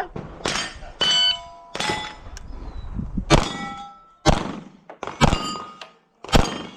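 A string of about seven pistol shots fired at steel plates, each followed by the ringing clang of a hit steel target, at an uneven pace over several seconds.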